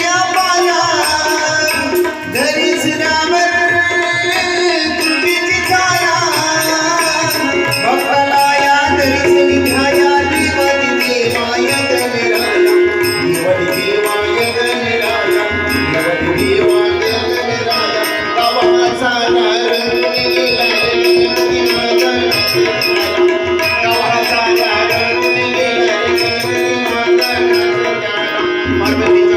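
Instrumental passage of a Marathi devotional bhajan: a steady tabla beat under a melody line and a held drone note.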